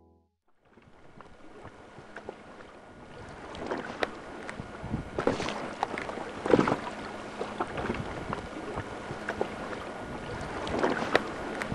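Wind buffeting the microphone over open water, with water splashing and irregular knocks and gusts; it grows louder a few seconds in.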